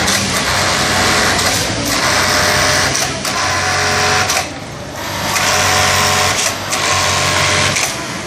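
Several industrial sewing machines running at once, in runs of a second or two broken by short pauses, with a longer lull about halfway through.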